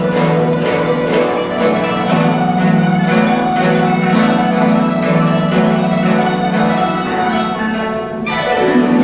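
Guzheng (Chinese zither) playing a fast run of plucked notes over a sustained low note, with a falling pitch slide near the end.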